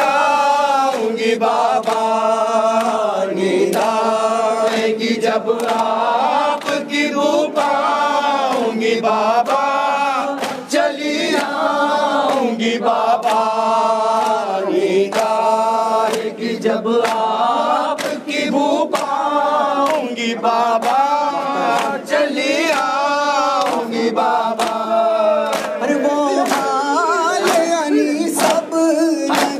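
A large group of men chanting a noha (Shia mourning lament) in unison. Sharp hand slaps of matam chest-beating keep time and come thicker near the end.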